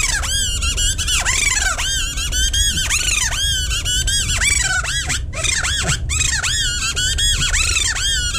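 Kathputli puppeteer's reed whistle squeaking in quick, high chirps that rise and fall several times a second, giving a string puppet its voice.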